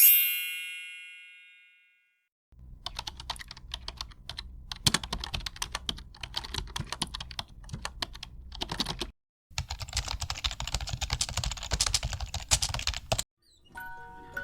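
A bright ding that rings out over about two seconds, then two long stretches of rapid computer-keyboard typing clicks with a short break between them. Near the end a run of short chime-like notes starts, stepping upward in pitch.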